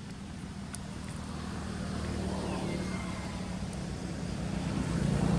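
A motor vehicle's engine running steadily and getting louder, as if approaching. A faint high tone glides down and then holds briefly about halfway through.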